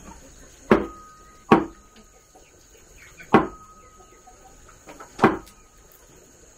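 Four loud, sharp strikes at uneven intervals, one to two seconds apart. Most are followed by a brief ringing tone.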